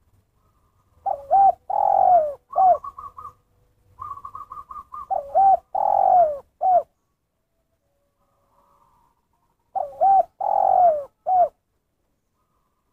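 Spotted dove (tekukur) cooing its call three times, each phrase a short coo, a longer falling coo and a short final coo: the call type hobbyists call 'kuk satu'. Between the first two phrases comes a quick run of soft, higher ticking notes.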